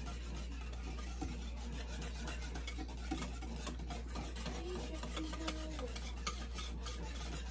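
Wire whisk stirring a thick ketchup-based barbecue sauce in a bowl: a steady, rapid scraping and clicking of the wires against the bowl.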